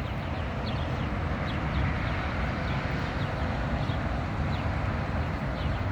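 Steady rumble of passing road traffic, with faint short, high, falling bird chirps repeating through it.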